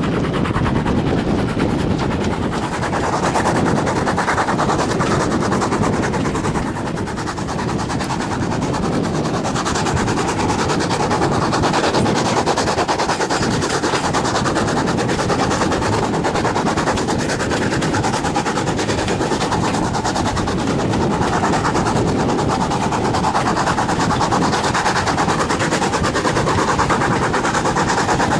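Ex-GWR 0-6-0 pannier tank No. 5764 working its train, its exhaust beats coming in a rapid, even rhythm, heard from a carriage window along the train.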